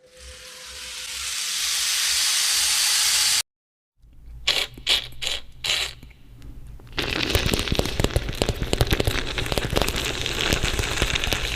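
A large rain stick's beads pouring down inside it in a hiss that swells for about three seconds and cuts off suddenly. After a short gap come a few sharp bursts, then a dense crackling rattle, a beatboxer's mouth imitation of the rain stick.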